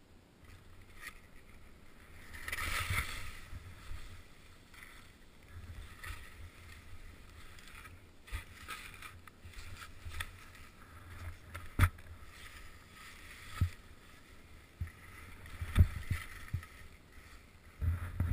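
Skis hissing and swishing through fresh snow, with a louder rush about two to four seconds in, and several sharp knocks in the second half.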